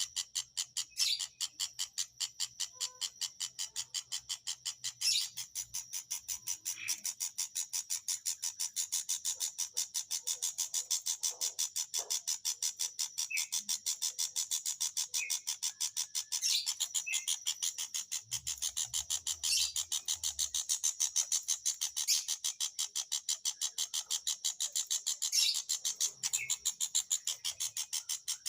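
Long-tailed shrike (pentet) calling: a fast, even run of short high chipping notes, about four a second, with a few louder notes now and then.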